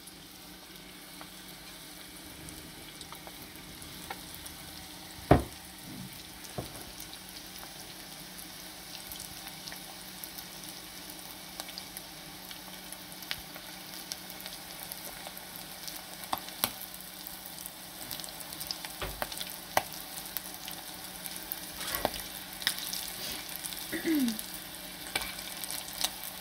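Panko-breaded squid rings deep-frying in hot vegetable oil in a stainless steel pot: a steady crackling sizzle full of fine pops that grows somewhat busier toward the end. A single knock about five seconds in.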